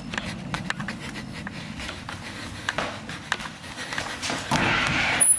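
Hurried footsteps with irregular knocks and clicks from a handheld camera being jostled. Near the end a louder scraping, rustling burst comes in and then cuts off abruptly.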